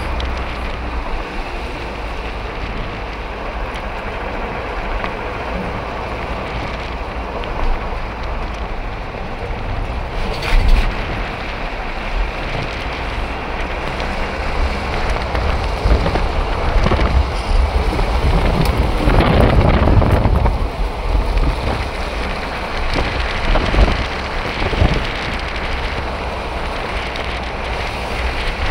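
A car driving, heard from inside the cabin: a steady low rumble of engine and tyres with wind rushing past, swelling louder for a few seconds about two-thirds of the way through.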